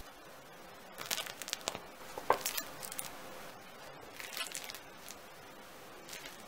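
Crisp crust of a home-baked yeast loaf crackling as fingers press on it, in a few short crunchy spells, the loudest about two seconds in.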